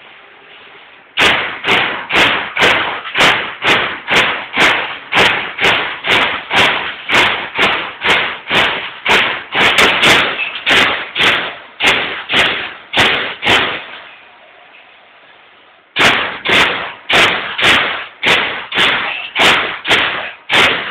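Baykal BPM-T CNC turret punch press punching sheet metal: sharp, regular hits about twice a second over a faint steady hum. The hits start about a second in, stop for about two seconds, then resume.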